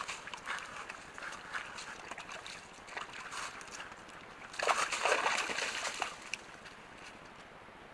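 White-tailed deer hooves stepping through wet mud, shallow puddles and dry leaf litter: scattered squelches and crackles, with a louder splashing spell about five seconds in.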